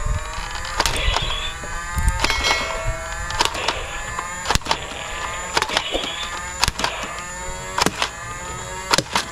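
Battery-powered toy foam dart blaster's motor whining, rising and falling in pitch, with sharp irregular clicks of shots and darts striking targets, roughly one or two a second.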